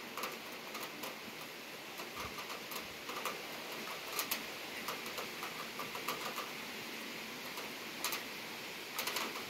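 Steady hiss of a rain shower, with individual drops tapping sharply here and there, a few louder taps about four and eight seconds in.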